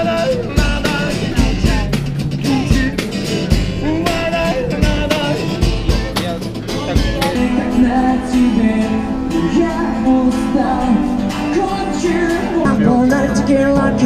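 Street music: a busker sings and strums an acoustic guitar while kicking a bass drum about twice a second. About seven seconds in, the drum beat stops and a different singer's voice and guitar take over.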